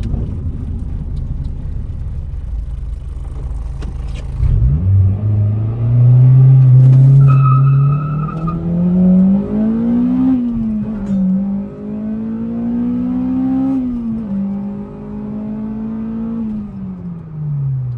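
Acura RSX (DC5) four-cylinder engine pulling hard through the gears. After a few seconds of low steady running the revs climb, drop sharply at a shift about ten seconds in, climb again, drop at a second shift, hold, then fall away near the end. A brief steady high tone is heard around seven to eight seconds in.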